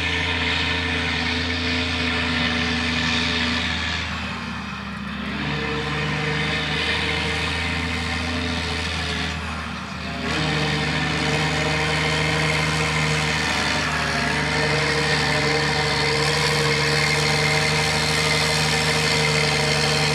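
Claas Xerion 4500 tractor's Caterpillar C13 diesel engine running steadily while pulling a loaded compost spreader. Its note steps slightly twice.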